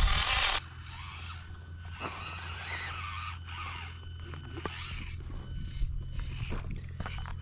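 1/24-scale micro RC crawler working over rocks: scattered scrapes and clicks of tyres and chassis on stone over a steady low hum, after a brief loud rush of noise in the first half-second.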